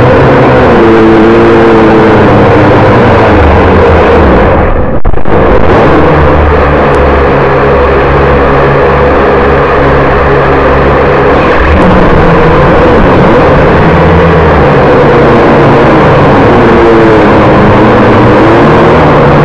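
Engine and propeller noise of a low-flying aircraft heard on board: a loud, steady drone with several tones that waver up and down in pitch. It is briefly muffled about five seconds in.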